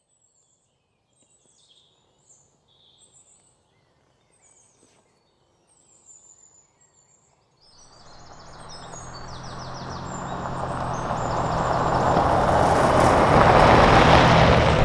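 Faint bird chirps, then from about eight seconds a pickup truck approaching on a gravel road, its engine hum and tyre noise growing steadily louder.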